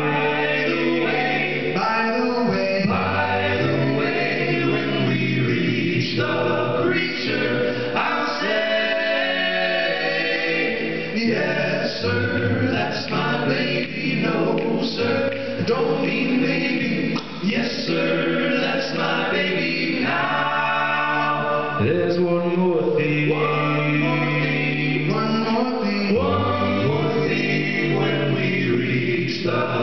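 Male a cappella vocal group singing in close harmony through microphones and a PA, a sung bass line holding low notes under the upper voices.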